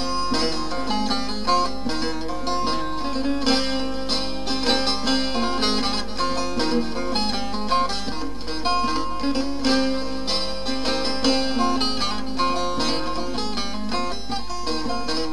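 Instrumental interlude of a Turkish folk song (türkü), with plucked string instruments playing the melody over a steady pulse.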